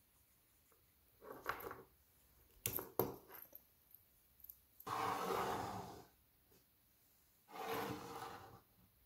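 Bicycle chain being handled with a chain-breaker tool: a short rustle, then two sharp metal clicks close together about three seconds in. Twice after that, a second or so of rattling as loose chain links clatter on a wooden tabletop.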